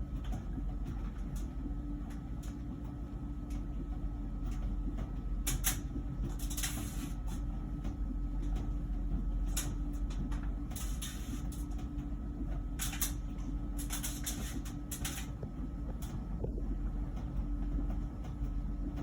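Heat pump ventless dryer running mid-cycle: a steady low hum with a faint constant tone, and scattered light clicks and brief rustles. The buzzing noise has not started yet.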